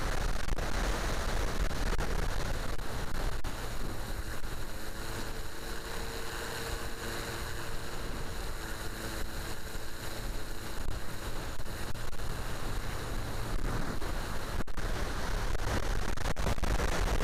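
ParkZone T-28 RC airplane in flight, heard from a camera on its wing: steady wind rush and low rumble over the microphone, with a faint steady hum from its brushless electric motor and three-blade propeller through the middle.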